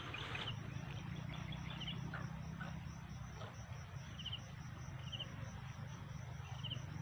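Short high chirps from a calling animal, repeating every second or so over a steady low hum.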